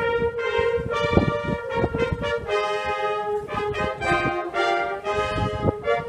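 Marching band brass (trumpets, trombones and horns) playing loud sustained chords that move every second or so, with percussion hits.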